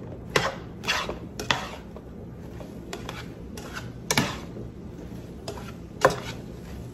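A spatula scraping and knocking against a nonstick frying pan as chopped vegetables are stirred: about eight irregular strokes, loudest a little after four seconds and about six seconds in.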